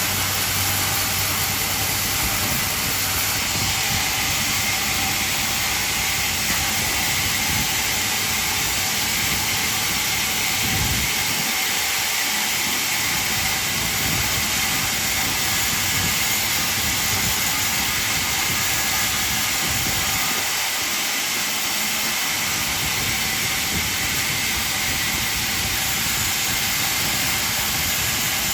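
Band sawmill running: a steady, unbroken hiss of machinery with a faint high whine.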